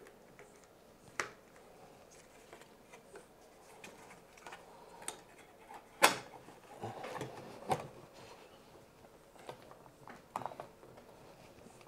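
Faint handling noise with a few sharp plastic clicks and knocks, the loudest about six seconds in, as a recessed LED downlight is pressed up into its ceiling fixture.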